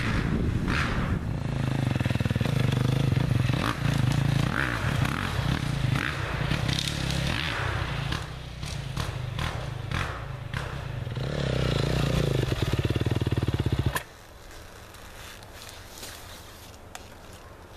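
Dirt bike engine running and revving, its pitch rising and falling, with some knocks along the way. About fourteen seconds in the engine sound cuts off suddenly, leaving a much quieter background.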